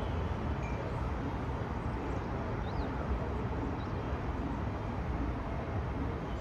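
Steady low rumble of distant city traffic and rail outdoors, with a few faint bird chirps around the middle.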